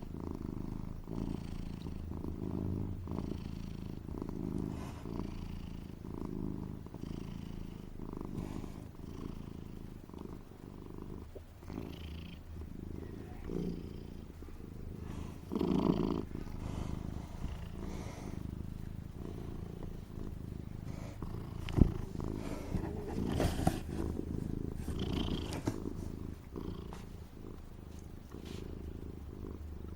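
A domestic tomcat's continuous low rumble as it breathes, swelling and fading with each breath every second or two. A single sharp click stands out partway through.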